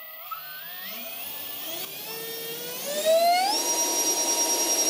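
Two 7000kv brushless electric ducted fans spooling up under throttle, their whine rising steadily in pitch. About three seconds in it grows louder, then holds at full throttle as a steady high whine.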